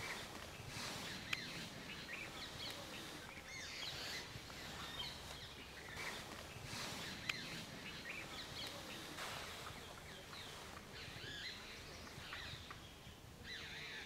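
Several birds chirping and calling over a steady outdoor background hiss, with two brief sharp clicks, about a second in and about seven seconds in.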